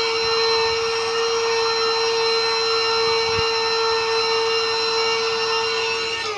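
Small electric vacuum cleaner running with a steady, high motor whine while vacuuming dust out of a laptop. Near the end it is switched off and the whine falls in pitch as the motor spins down.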